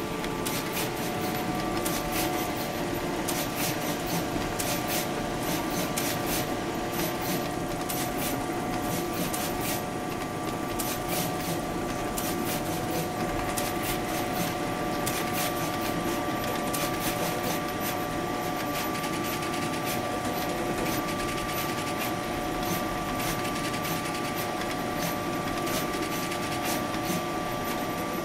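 Hanwha DECAN F2 SMT pick-and-place machine running: a steady machine hum with a couple of held whining tones, and rapid sharp clicks from the moving placement head. The clicks come in quick clusters through the first half, then grow sparse.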